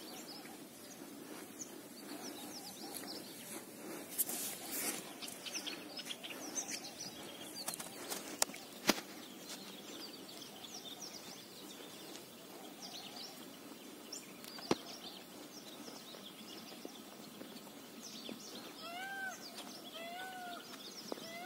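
Small birds chirping over a steady outdoor background hiss, with a few sharp clicks. Near the end a louder call of short rise-and-fall notes repeats about once a second.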